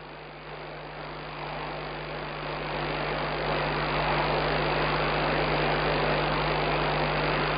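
Steady hiss with a low hum on an open telephone line, swelling over the first few seconds and then holding steady.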